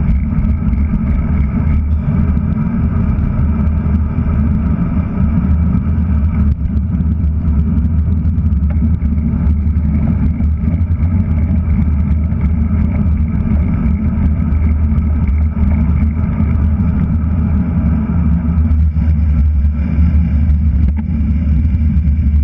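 Steady, loud low rumble of wind and road noise on a handlebar-mounted GoPro Hero3+ while a road bike is ridden along a city street.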